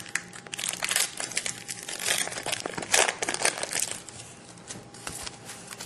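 Irregular crinkling and rustling of trading-card pack wrappers and cards being handled and opened, busiest in the first three seconds and quieter after about four seconds.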